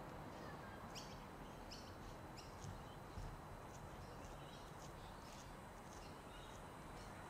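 Birds chirping in short high calls, about one a second, over a faint low steady rumble.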